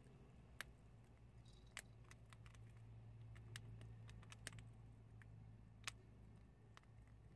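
Prairie dogs chewing dried chickpeas: quiet, irregular crunches and clicks as the beans are bitten and gnawed, a few sharper ones standing out, over a faint steady low hum.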